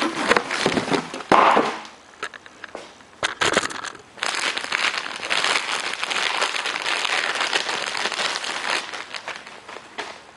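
Packaging crinkling and rustling as a newly delivered replacement engine part is unwrapped by hand, with many small clicks and crackles. It is busiest in the first two seconds, thins out, then runs on steadily from about four seconds in until it fades near the end.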